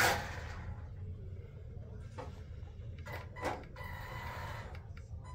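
Small RC car's motor whirring in short spurts as the car drives and stops, the loudest right at the start and a couple more about three seconds in, then a faint steady whine near the end.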